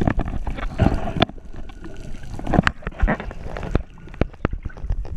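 Scuba regulator exhaust bubbles gurgling underwater in irregular bursts, with many short clicks and pops.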